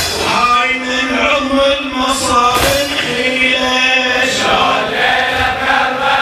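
A radood, a male Shia lament reciter, chanting a Muharram elegy (latmiya) in Arabic, with a group chanting along. There is a sharp strike at the very start and another about two and a half seconds in.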